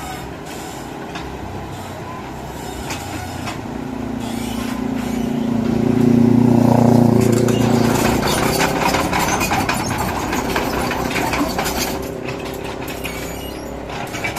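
Heavy diesel machinery engine running, growing louder to a peak about halfway through and then fading, with a rattling clatter after the peak.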